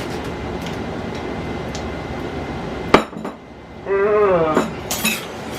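A steady rushing noise cuts off about three seconds in with a sharp knock. Then kitchen dishes and utensils clink and clatter a few times.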